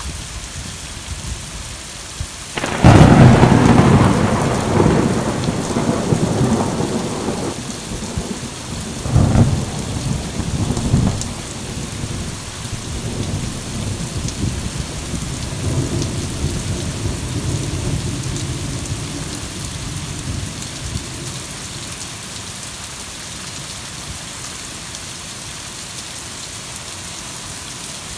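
Heavy rain pouring steadily, with a close thunderclap cracking suddenly about three seconds in and rumbling on, with two more loud peaks, before fading out after about twenty seconds.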